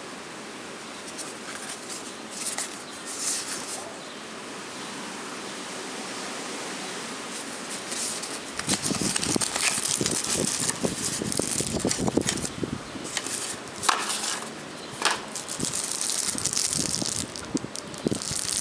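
Light handling of a cardboard calculator box at first; from about eight seconds in, the plastic-wrapped calculator is pulled out of the box, with the plastic sleeve crinkling and rustling against the cardboard.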